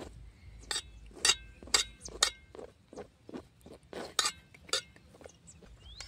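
Metal table knife clinking and scraping against an enamel plate while spreading sauce on a pizza base. It makes a string of sharp clinks about every half second, and the loudest three, in the first half, ring briefly.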